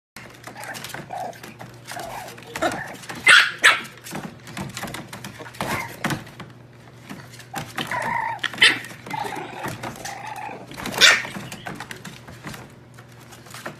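French bulldog puppies yapping: short, sharp, high puppy barks, the loudest about three seconds in and again near eleven seconds, with softer whimpering between.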